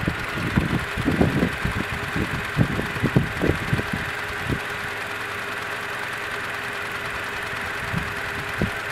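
Toyota Tacoma pickup's warmed-up engine idling steadily, heard from beside the open engine bay. Irregular low bumps and rustles come over it through the first half.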